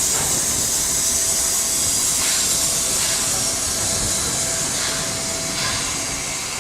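Steam locomotive releasing steam in a loud, steady hiss, with a faint steady tone under it.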